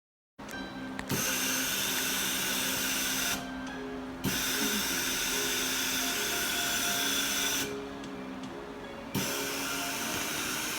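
Dental handpiece running with a high-pitched whine and hiss, stopping twice briefly, about three and a half and eight seconds in, before starting again.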